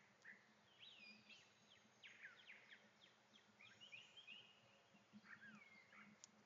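Several birds chirping and calling, faint. Many short sliding whistles and chirps overlap, from more than one bird.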